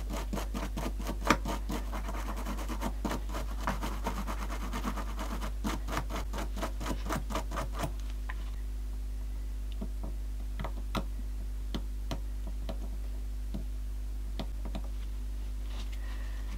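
A small brush scrubbing a plastic radio volume knob in quick back-and-forth strokes for about eight seconds to clear grime from its grooves. After that, only a few light scattered clicks and taps as the knob is handled and wiped, over a low steady hum.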